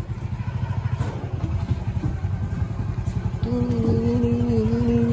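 Single-cylinder motorcycle engine running at low speed with an even, rapid low pulsing as it tows a donkey cart. A steady humming tone joins in about three and a half seconds in.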